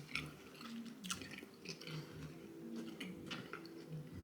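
Close-up chewing of sauced chicken wings: a run of faint, irregular small clicks and smacks of a mouth eating.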